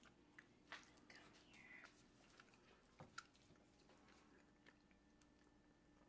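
Faint wet squishing and light knocks of a wooden spoon scooping thick refried beans from a stainless saucepan and dropping them onto a tortilla, loudest a little under a second in and again around three seconds in.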